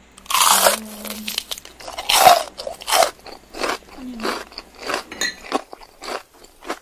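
Someone chewing with loud, crisp crunching bites, about two a second.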